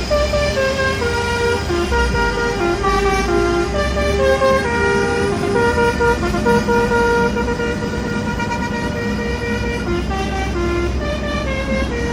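A musical vehicle horn playing a tune of short notes stepping up and down in pitch, over a steady low engine rumble.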